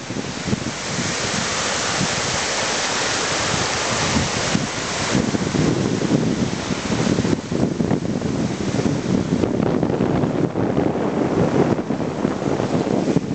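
Waves on a lake shore breaking and washing over rocks in a steady surging wash, with wind buffeting the microphone.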